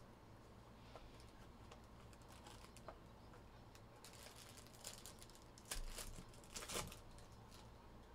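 Faint handling of a trading-card hobby box being opened and its foil-wrapped pack pulled out: a few light clicks, then louder crinkling and rustling about five to seven seconds in.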